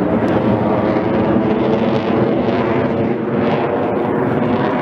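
Loud, steady noise of jet aircraft engines from an air show flight.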